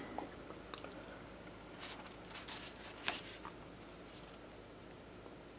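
Quiet room with a few faint handling clicks and rustles, the sharpest click about three seconds in.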